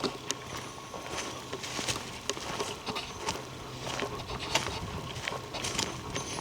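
Several short, breathy sniffs among soft rustling and footfall clicks on a forest trail. The uploader attributes the sniffing to a Sasquatch.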